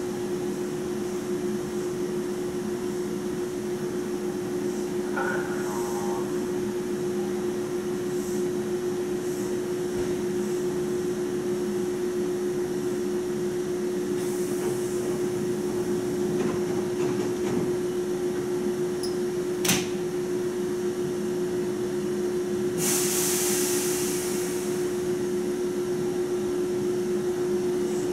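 Hankyu 7000-series electric train standing at the platform, its onboard equipment giving a steady hum. A sharp click comes about 20 seconds in, and a burst of hiss lasting about two seconds follows about 23 seconds in.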